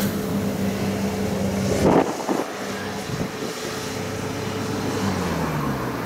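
Kubota DC70 combine harvester's diesel engine running steadily, with one short sharp noise about two seconds in; near the end the engine's pitch falls as it slows.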